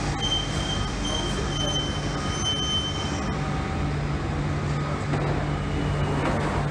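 London Underground Central Line 1992-stock train braking to a stop: a high steady wheel-and-brake squeal that cuts off about three seconds in, over a steady low hum from the train.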